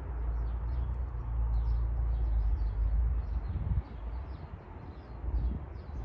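Small birds singing, with short high chirping notes repeating several times a second. Under them is a low rumble that eases off a little before four seconds in.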